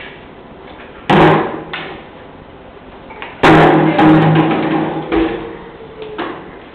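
Large empty plastic water-cooler bottle being knocked and rolled over a tiled floor by a toddler. Two loud hollow thuds come about a second in and again about three and a half seconds in, each ringing on briefly, with lighter knocks in between.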